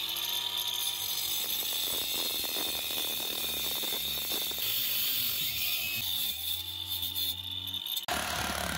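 Angle grinder with a cutting disc grinding away the concrete at the edge of a fence-post hole, to shave it back so the post fits. It runs at speed with a steady high whine and a rough grating as the disc bites, then breaks off abruptly near the end.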